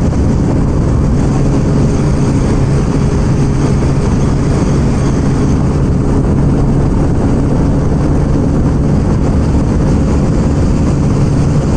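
TVS Radeon 110 cc single-cylinder motorcycle engine running at full throttle at a steady high speed, its note holding constant, with wind rushing over the microphone.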